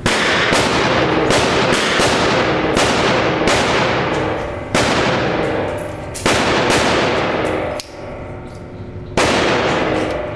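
Gunshots at a shooting range: a quick irregular string of loud shots, often less than a second apart, each with a long echoing tail, with a pause of a couple of seconds before one last shot near the end.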